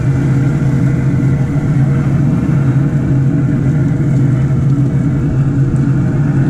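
Loud, steady motor hum with a low drone and a few steady tones above it, unchanging throughout.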